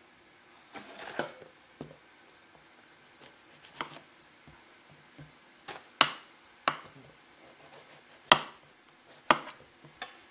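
Kitchen knife cutting through aubergines onto a wooden chopping board: about eight sharp, irregularly spaced knocks of the blade striking the board.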